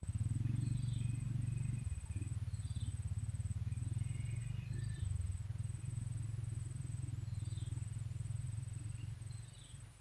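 A loud, low rumble that starts suddenly and fades near the end, with a bird chirping every second or two and a steady high insect whine behind it.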